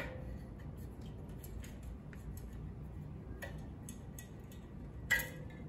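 Small metallic clicks and taps as the spring-loaded red blade guard is worked at its pivot on a Delta 37-290 4-inch jointer, with a sharper metal clink about five seconds in.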